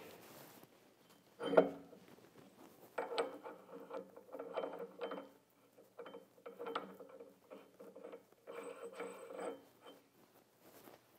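Metal parts of a blade-sharpening grinder being handled: a sharp clunk about one and a half seconds in, then several short bouts of scraping and rattling as a 1-inch grinding wheel is fitted onto the spindle by hand.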